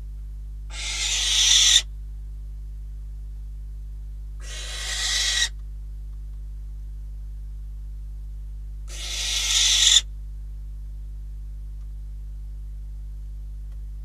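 Barn owl giving three harsh, noisy screeches, each about a second long. Each swells in loudness and cuts off abruptly.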